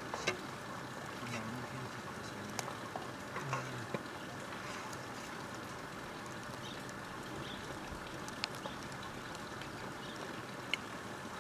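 Open wood fire crackling, a handful of sharp pops scattered over a steady hiss.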